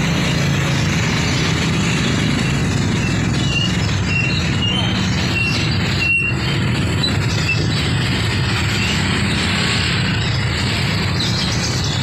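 Busy street traffic, mainly motorcycles, as a steady engine rumble. A few short high-pitched chirps sound between about three and seven seconds in.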